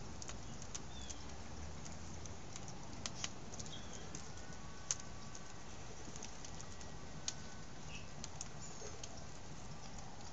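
Wood fire crackling, with irregular sharp pops and snaps, one louder pop about halfway through.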